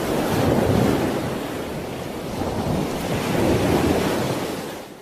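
Ocean surf: waves breaking and washing up the shore, the rush swelling twice, about a second in and again toward the end.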